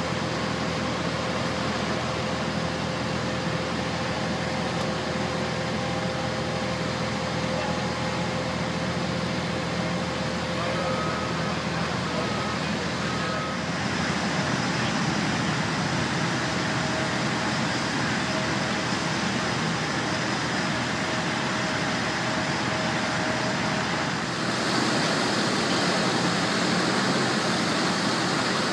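Steady rushing drone of airport ramp machinery with faint whining tones. The drone changes and grows a little louder about halfway through and again near the end.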